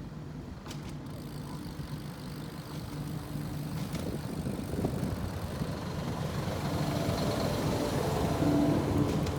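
A motor vehicle's engine running, growing steadily louder as it comes closer.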